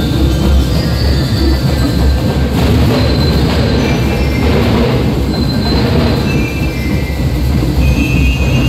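Marching band drum line playing loudly: massed snare, tenor and bass drums beating together in a dense, steady wall of percussion. Short high ringing notes sound over the drums in the second half.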